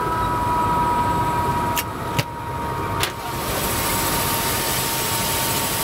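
Helicopter turbine and rotor noise heard from inside the cabin while it stands on the ground: a steady whine over a low rumble. Three sharp clicks come about two to three seconds in, after which a brighter hiss grows louder.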